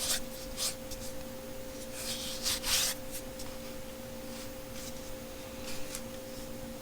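Brief rustling and handling noises as a new multi-tool is taken from its packaging, loudest around two to three seconds in, over a steady faint background hum.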